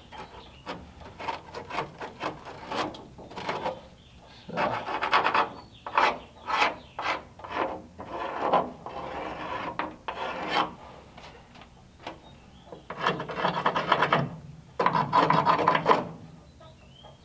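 Rasping strokes of a hand-held marker drawn over rough, rusted steel along the A-pillar seam of a 1939 Ford, marking out the rotten area to be cut out. The strokes come irregularly, some short and some long, with the longest near the end.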